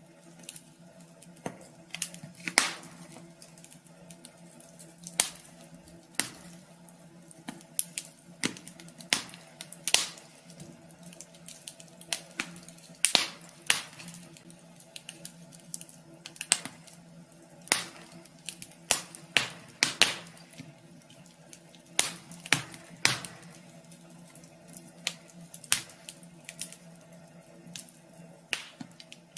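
Wood fire crackling in a wood stove: irregular sharp pops and snaps, some much louder than others, over a steady low hum.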